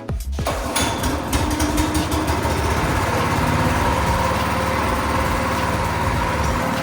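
Go-kart's single-cylinder Honda GX200 four-stroke engine running steadily.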